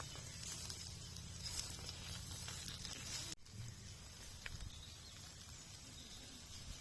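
Steady hiss with a few faint crackles, typical of food sizzling over a wood campfire. The sound cuts out for an instant and changes a little about halfway through.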